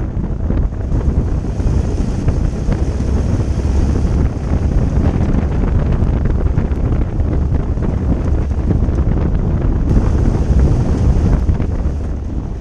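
Wind buffeting the microphone over the steady low rumble of a homemade twin-engine car driving along a road.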